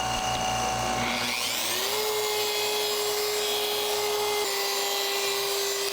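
Handheld electric paint polisher starting up about a second in. Its motor whine rises in pitch, then holds steady as it works the paint, and drops a little in pitch near the end. A lower steady hum fades out in the first second or two.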